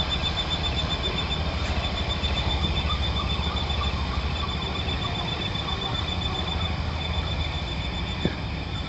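Dawn countryside ambience: a steady, high-pitched pulsing trill and scattered faint bird chirps over a constant low rumble.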